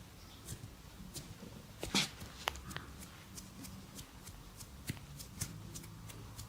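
Hands massaging skin and hair: scattered short slaps, rubs and clicks, the loudest about two seconds in.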